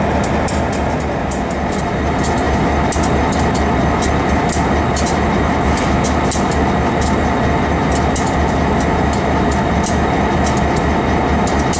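EMD GP38-2 and GP40-2 diesel locomotives idling: a steady low engine drone, with irregular sharp ticks over it.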